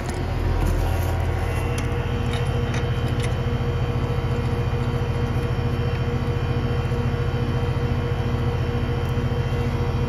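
Goodman heat pump outdoor unit running, its compressor and condenser fan giving a loud, steady hum that grows louder over the first second and then holds even.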